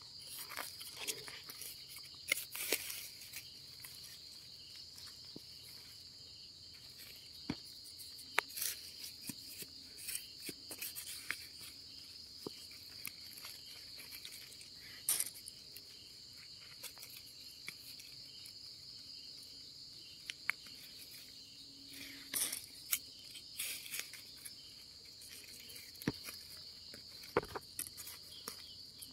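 Insects trilling steadily at one high pitch, with scattered crackles and rustles of dry leaf litter being handled.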